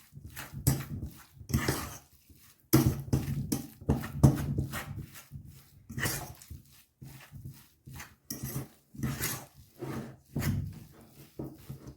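Thick, lumpy cottage cheese dough being mixed in a bowl: a run of irregular wet stirring and thudding strokes, about two a second with short pauses.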